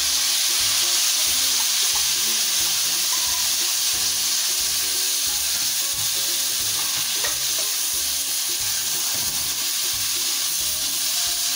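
Chicken and vegetables sizzling hard in a hot frying pan as a sauce is poured in, then stirred and tossed with a spatula: a steady loud hiss with a few light scrapes of the spatula against the pan.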